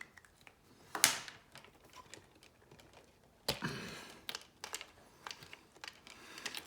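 Small clicks and rustles of hands handling wiring and connectors inside a cassette four-track recorder, with a sharp click about a second in and another about three and a half seconds in.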